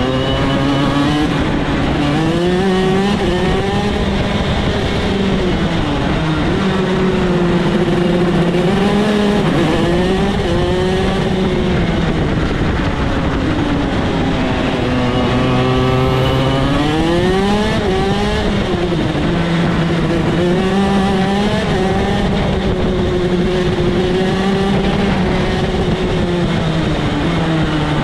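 Shifter kart's two-stroke engine heard from onboard, running hard with its pitch repeatedly dropping and climbing as it is driven through corners and gear shifts, over a constant rushing noise.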